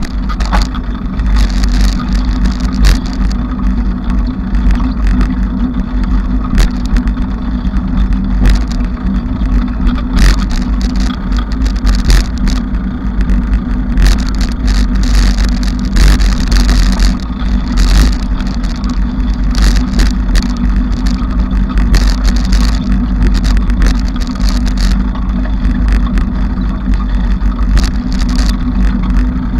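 Bicycle riding noise: a loud steady low rumble with a constant hum, broken by frequent short rattles and knocks as the bike goes over bumps.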